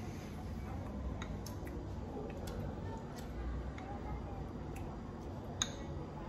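Someone eating gelato: scattered light clicks and taps, with one sharper click about five and a half seconds in, over a steady low rumble.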